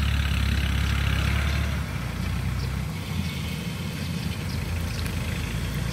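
DC-93 combine harvester's engine running steadily as it cuts rice, a little louder for the first two seconds or so before easing back.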